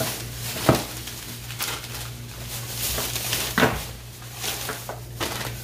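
Kitchenware being handled on a counter: scattered knocks and clatter, the two loudest about a second in and about three and a half seconds in, over a steady low hum.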